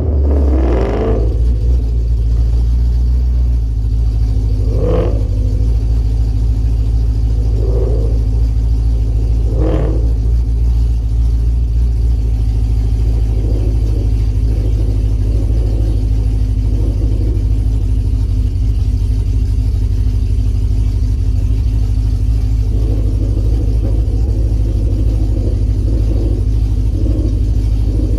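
Modified V8 drag vehicle engine coming down off a rev at the start, then idling with a heavy low rumble right at the camera after a burnout. Three short sharper sounds cut in about 5, 8 and 10 seconds in.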